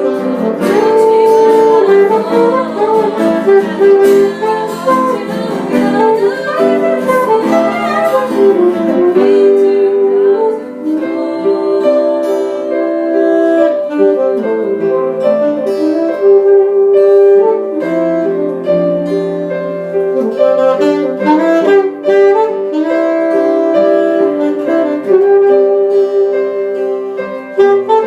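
Jazz band playing an instrumental passage, a saxophone carrying the melody over the accompaniment.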